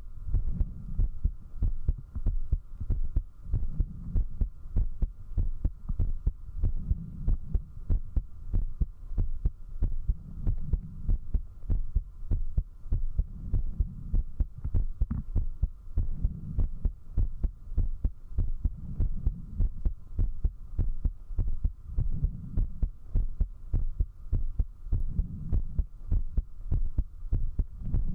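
A person's heartbeat picked up at zero distance by a binaural microphone: a fast, steady train of low thumps, with the heart rate raised by drinking alcohol.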